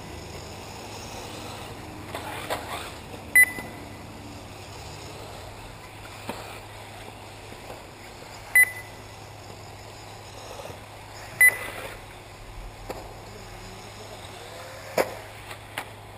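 Short electronic beeps from an RC race lap-timing system, three of them at irregular intervals as cars cross the timing line, over steady low background noise from the track; a single knock near the end.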